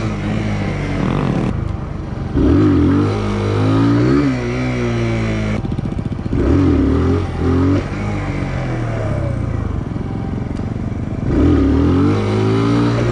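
Small 125cc single-cylinder motorcycle engine under hard throttle, revving up and easing off three times: the pitch climbs with each burst of throttle and drops as it backs off.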